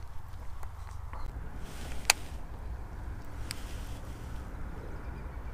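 Low steady wind rumble on an action camera's microphone, with a few light clicks and a brief rustle; the loudest click comes about two seconds in.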